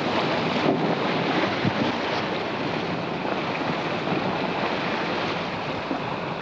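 Strong storm wind and rough, breaking seas heard from the deck of a heeled-over sailing yacht: a steady rush of wind and water, with wind buffeting the microphone.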